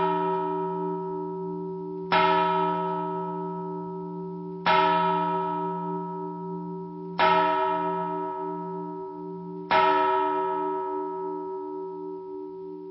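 A bell tolling slowly, struck four times about every two and a half seconds, each stroke ringing on and fading before the next.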